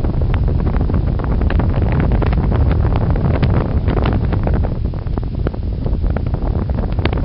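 Rushing airflow buffeting the microphone of a camera on a hang glider in flight: a loud, steady low rumble of wind with frequent short crackles.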